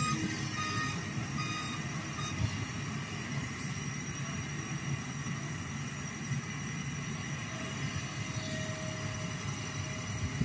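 Kobelco hydraulic excavator's diesel engine running steadily as the machine digs the canal, an even low drone.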